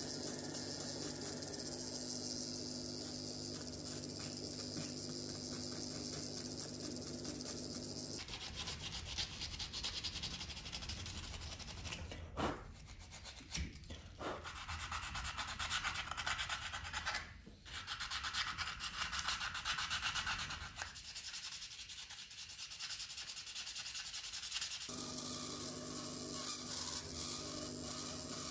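Flexible-shaft rotary tool running with a steady hum as its burr grinds a black walnut handle. About eight seconds in it stops and is followed by rough hand sanding, with a few brief pauses. The rotary tool starts again near the end.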